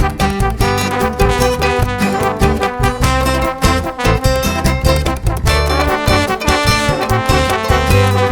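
Background music with brass instruments over a steady beat, in a swing style.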